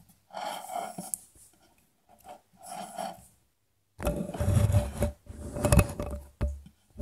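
Small bare loudspeaker drivers being handled and shifted on a wooden tabletop: rough rubbing and scraping in short bursts, then a louder stretch of rattling with a low hum and several sharp knocks about four seconds in.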